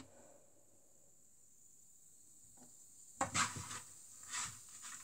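Cooking noise from a pan on the hob. It is faint at first, then from about three seconds in a hissing, scraping sound comes in a few uneven strokes, as food is stirred in the pan.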